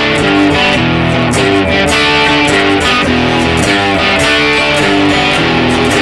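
Ibanez RC720 Premium electric guitar with Core-Tone humbuckers being played, strummed chords and notes ringing steadily with a somewhat Strat-like tone.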